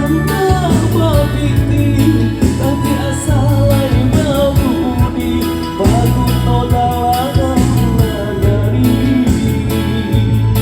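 Live band music: steady bass and guitar under a wavering, ornamented melody line, played through the PA at a sound check.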